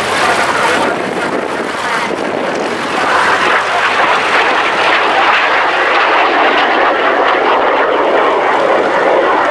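Loud jet noise from a BAC Jet Provost's Viper turbojet as the trainer flies a display pass in banking turns. The sound swells about three seconds in and stays loud.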